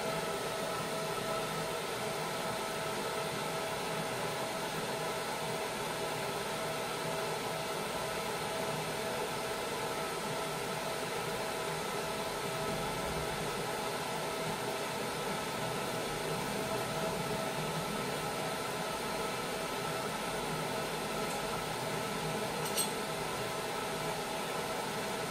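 Steady fan noise with a faint whine through it, from the cooling fan of a switched-on fiber laser marking machine. A single small click near the end.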